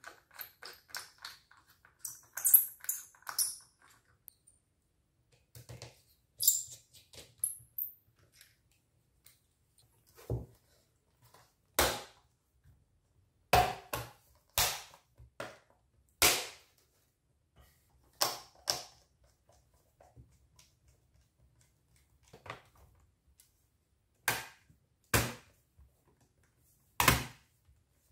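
Irregular sharp clicks and knocks as an HP ProBook 450 G5 laptop is reassembled: the bottom cover is fitted and pressed down so its clips snap into place, with tools and small parts handled on the tabletop. A dozen or so separate clicks are spread through it, with a light rattle in the first few seconds.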